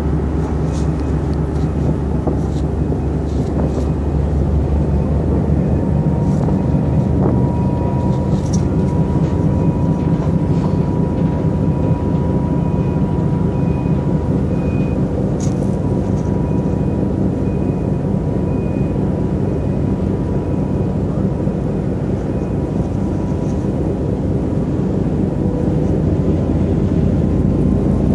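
A ship's engines running with a steady low drone as the car ferry gets under way.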